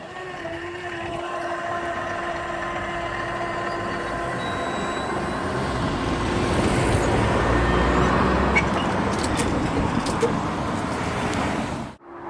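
Hitachi Class 800 Azuma train passing over the level crossing, running on its underfloor diesel engines: a steady hum under a rush of wheels and air that builds to its loudest about two-thirds of the way through, with a few sharp wheel clicks over the rail joints. It cuts off suddenly near the end.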